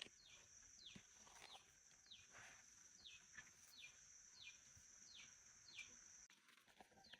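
Faint outdoor ambience: a bird repeating a short downward chirp about twice a second over a steady high buzz. The buzz and background cut off abruptly about six seconds in.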